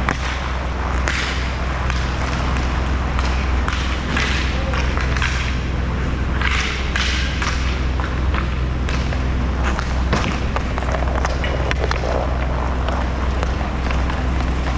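Roller hockey play on a rink: scattered clacks and thuds of sticks, puck and skates over a steady low hum.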